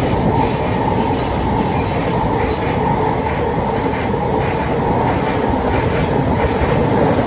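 Thameslink Class 700 electric multiple unit running past, a loud, steady rumble of wheels on rail.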